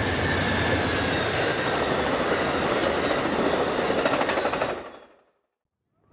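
Amtrak passenger train with bilevel cars passing at speed over a grade crossing: a steady rush of wheel and rail noise with fast clickety-clack. It fades out quickly about five seconds in, leaving silence.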